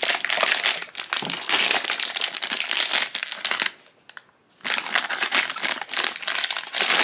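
Foil blind-box bag crinkling as it is handled and the ornament is pulled out of it, stopping for about a second in the middle before crinkling again.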